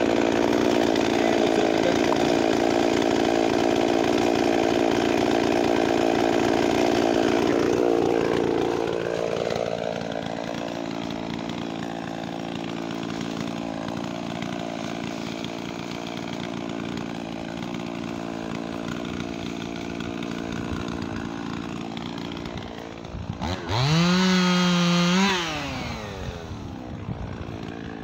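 Gasoline chainsaw held at high revs for about eight seconds, then dropping back to idle and idling. Near the end it is revved up sharply once and falls back to idle.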